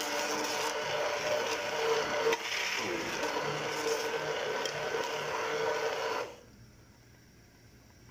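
Electric immersion hand blender running in a pot of thick cooked cracked wheat (jareesh), puréeing it; the motor runs steadily with a high whine, then switches off about six seconds in.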